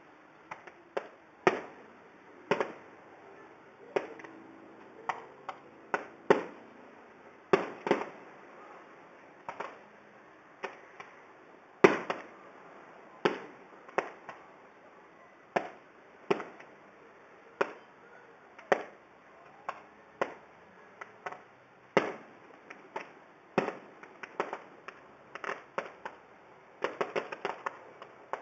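Aerial firework shells bursting one after another in sharp bangs, about one a second, with a quick flurry near the end. Heard through an iPhone's microphone, they sound thin, like someone popping bubble wrap.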